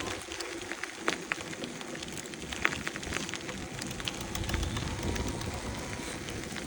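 Fazua Ride 60 e-bike drive unit making irregular sharp clicks, the loudest about two and a half seconds in. The clicking persists with all bolts tightened and no system errors, which the owner puts down to a fault in the motor itself.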